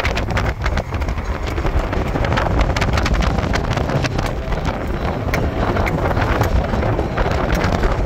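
Vehicle driving over a rough dirt track: a steady rumble of tyres and engine with frequent rattling clicks, and wind buffeting the microphone.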